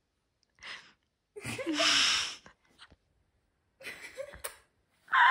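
Short breathy outbursts from a young woman's voice, the loudest about two seconds in with a falling pitch, separated by dead silence.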